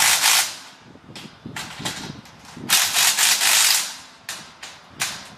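Power driver running in several short bursts, the longest lasting about a second, as it tightens the two bottom bolts of the ramp bracket.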